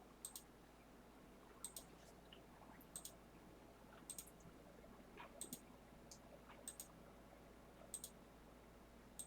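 Faint computer mouse clicks, eight of them, evenly spaced about a second and a quarter apart, each a quick press-and-release double tick: a randomiser button being clicked over and over.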